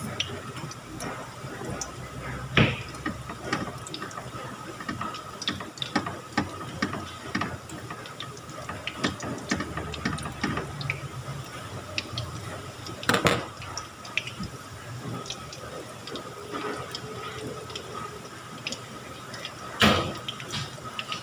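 Battered sweet potato fritters sizzling in hot oil in a frying pan, with many small crackles and pops. Three louder sharp knocks stand out, a few seconds in, about halfway through and near the end.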